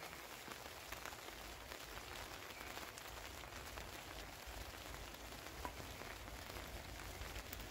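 Light rain just starting to fall: a faint, steady patter of drops with scattered small ticks.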